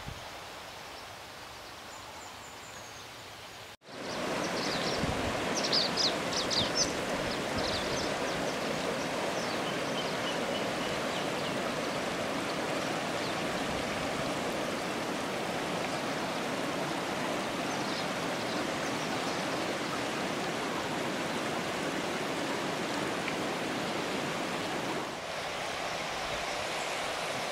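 Quiet outdoor ambience that cuts after about four seconds to a steady rush of running water, with a few short high chirps just after the change.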